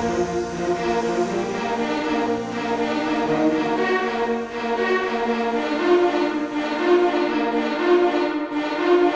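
Background instrumental music with violin and cello playing held notes.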